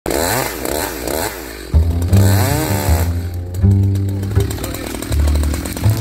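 Chainsaw running as it cuts into a sweetgum trunk, mixed with background music whose deep bass line comes in loudly after nearly two seconds.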